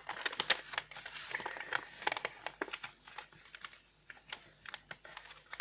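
A sheet of A4 paper being folded and creased by hand: crisp crackles and taps of the paper, busiest in the first half and thinning to scattered ticks near the end.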